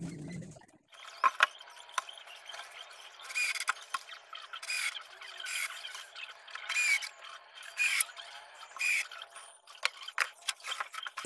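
A screw being turned by hand into the wooden cabinet panels, a short squeak with each turn about once a second, with small clicks and scrapes between.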